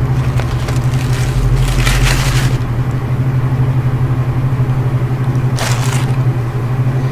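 Paper burger wrapper rustling and crinkling twice, about two seconds in and again near six seconds, as the sandwich is lifted out and handled. Underneath is a loud steady low hum.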